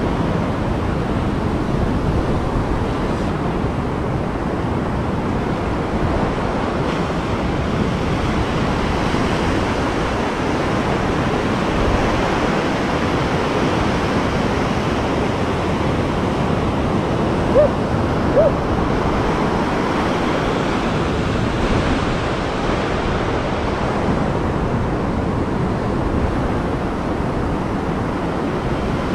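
Ocean surf breaking and washing up on a beach: a steady rush of waves and foam. Two brief squeaky chirps a little past the halfway point.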